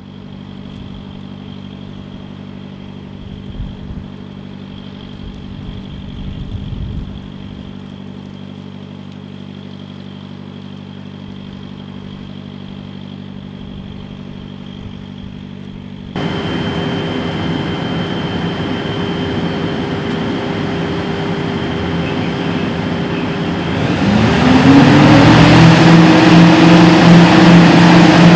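Hitachi EX8000-6 mining excavator's diesel engines running steadily, then suddenly louder about halfway through. About three-quarters in, the engines rev up, the pitch rising and then holding high and loud.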